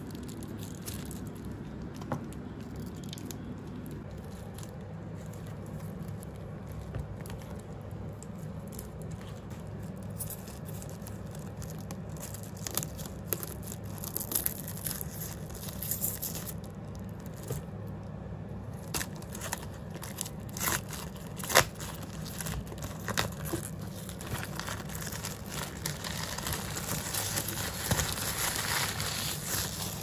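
Wrapping on newly bought books crinkling and tearing as it is handled and pulled off, with scattered sharp clicks and rustles that grow denser near the end. A steady low hum runs underneath.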